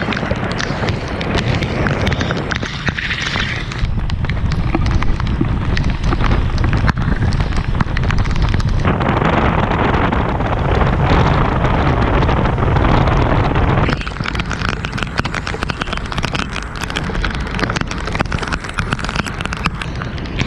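Wind buffeting an action camera's microphone, with rain and water noise, as a boat runs through a rain squall, with many small ticks throughout. The buffeting eases a little about fourteen seconds in.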